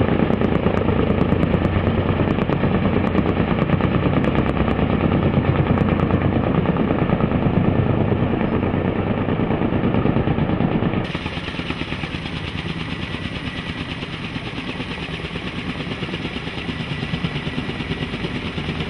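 Kaman K-MAX intermeshing twin-rotor helicopter hovering with a slung load, its rotors giving a continuous rapid chop. The sound becomes quieter and thinner about eleven seconds in.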